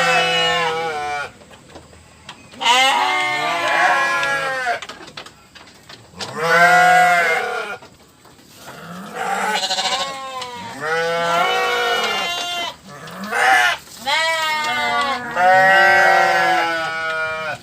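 Goats or sheep bleating: a string of about six long, quavering bleats with short pauses between them.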